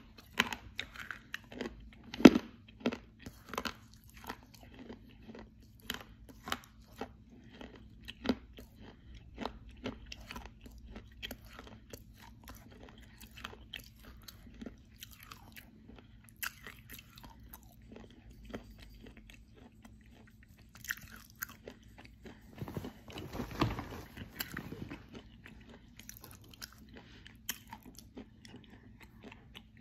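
Close-miked chewing of dry edible clay: a steady run of sharp crunches and clicks in the mouth. The chewing gets louder and denser for a couple of seconds about two-thirds of the way through.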